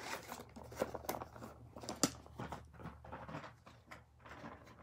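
Packaging being handled: irregular crinkling and rustling with scattered sharp crackles, the loudest snap about two seconds in.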